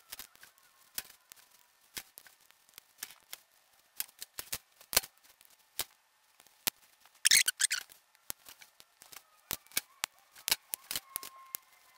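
Irregular small, sharp clicks and snaps of wires being pushed into lever-type wire connectors and a relay board's terminals, with a brief rustle about seven seconds in.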